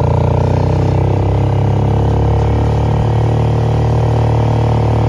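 Vehicle engine running steadily at an even speed, a loud low hum that keeps the same pitch throughout.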